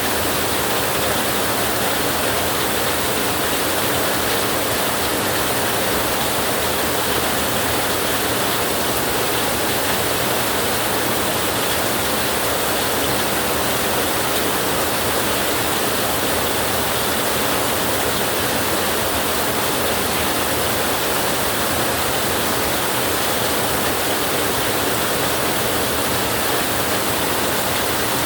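Heavy rain drumming steadily on a tin roof: an even, unbroken hiss with no thunder.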